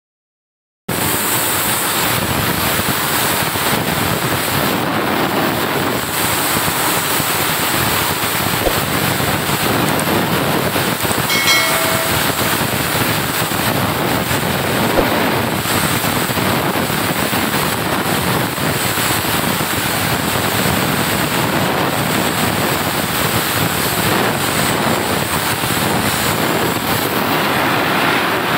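Compressed-air spray gun hissing steadily as it sprays paint, starting about a second in and running on without a break.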